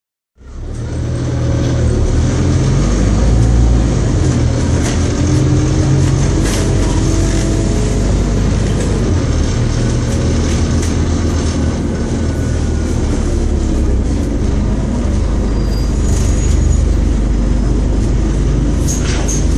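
Scania OmniCity single-deck bus heard from inside the passenger saloon: its diesel engine's steady low drone, fading in just after the start, with the occasional click and rattle from the body.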